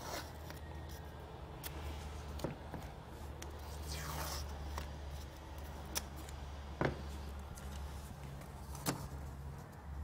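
Masking tape being pulled off the roll and torn, with short scraping rips and a few light clicks from handling, over a low steady hum.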